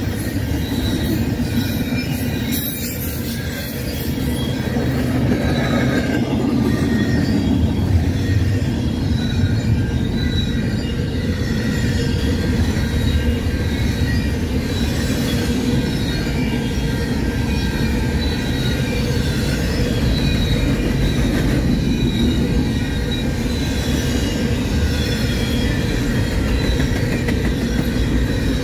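Double-stack intermodal container cars rolling past: a steady rumble of steel wheels on rail, with scattered high squealing tones from the wheels.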